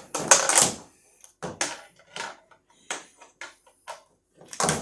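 A series of short knocks and rustles from gear being handled and fitted onto a cooler: a longer scraping rustle at the start, then about seven separate short knocks, with a louder one near the end.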